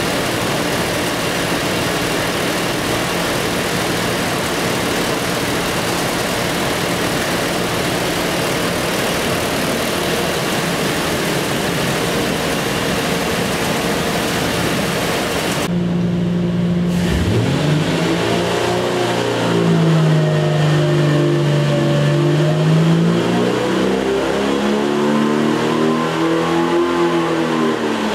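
Jeep 4.6 stroker straight-six engine running on an engine dyno: a steady, even engine note for about sixteen seconds, then the engine speed rises, dips and climbs again before dropping back near the end.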